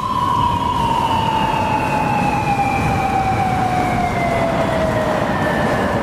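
Police motorcycle siren sounding one long wail that slides slowly and steadily down in pitch, over a steady low rumble.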